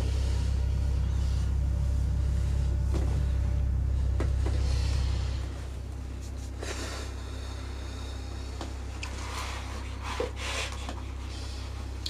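A deep, steady low drone of horror-film score that drops in level about halfway through. Faint scattered knocks and rustling sit over it, with a short louder knock near the end.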